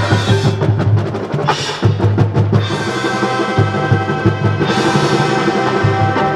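High school marching band playing: woodwinds and brass over a steady low bass-drum beat, with a short stretch of sharp percussion clicks about two seconds in.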